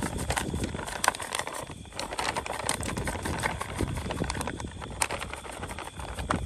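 Plastic zip-top bag crinkling and rustling with irregular clicks as pieces of catfish are shaken and tossed in dry fish-fry breading to coat them.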